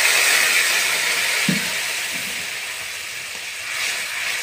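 Splash of water hitting hot oil and fried onion and ginger-garlic paste in a wok, hissing loudly and sizzling, the sizzle slowly dying down as the water heats through.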